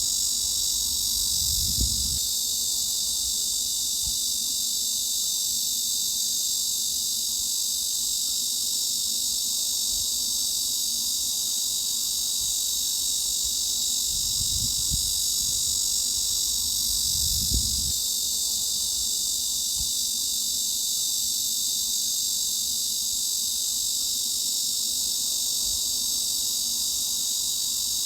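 Cicadas singing in a steady, unbroken high-pitched drone.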